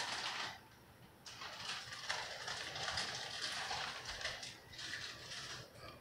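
Heavy rain pouring down on the deck and trees, an even hiss that drops away briefly about a second in and then comes back.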